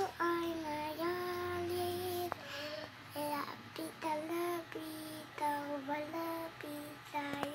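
A young child singing a tune in long held notes that step up and down in pitch.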